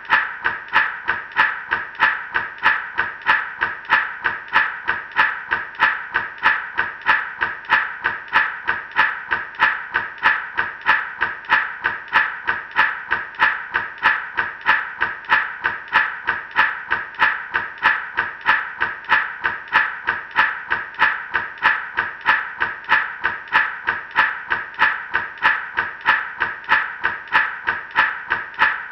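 Gourd rattle shaken in a steady, even rhythm, each stroke a short bright rattle of seeds inside the dried gourd.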